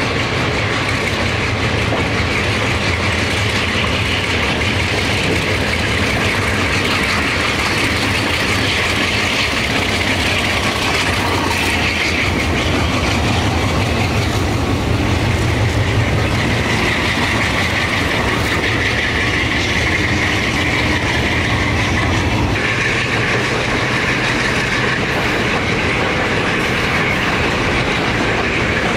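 A freight train rolls slowly past behind a lash-up of Alco-design diesel locomotives, their engines giving a steady low drone. The cars' wheels click over the rail joints.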